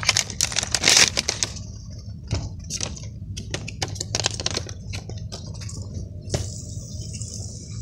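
Clear plastic packaging crinkling and crackling as a fidget spinner is pulled out of it, densest in the first second, then scattered clicks and crackles as it is handled. A steady low hum of the car runs underneath.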